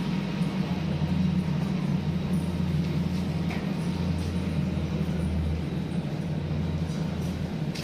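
Steady low hum of a Berlin S-Bahn electric train standing at the platform, over general station noise.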